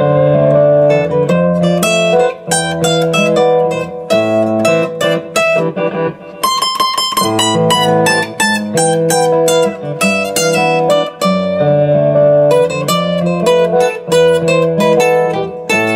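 Steel-string dreadnought acoustic guitar played with a flatpick: a progression of extended jazz chords, picked through and strummed, the notes ringing on one another.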